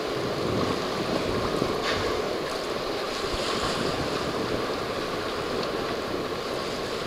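Water rushing and splashing along the hull of a sailing yacht under way, with wind buffeting the microphone, steady throughout.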